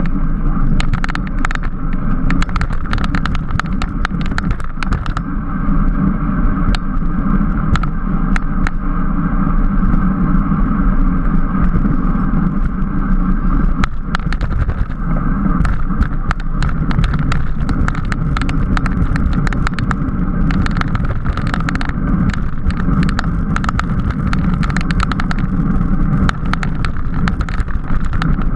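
Bicycle riding at race speed: a steady rush of wind and road noise on the camera's microphone, with many sharp clicks and rattles running through it.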